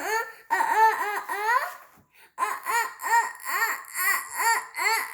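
Young child's voice making a long run of drawn-out "ah… ah… ah…" sounds, about three a second, each rising and falling in pitch, with one short break about two seconds in: the build-up to a pretend sneeze.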